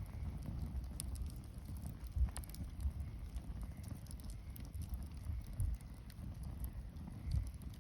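Wood bonfire crackling, with scattered sharp pops and snaps over a steady low rumble.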